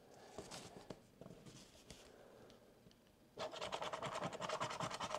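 A coin scratching the rub-off coating of a lottery scratch card: a few faint scrapes, a short pause, then from about three and a half seconds in, rapid, steady back-and-forth scratching.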